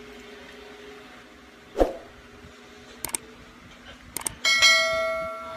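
A-One 809 tube subwoofer speaker being powered up and tested after repair: a single loud thump, a couple of sharp clicks, then a bright electronic tone with several pitches at once that fades over about a second. A faint steady hum runs underneath.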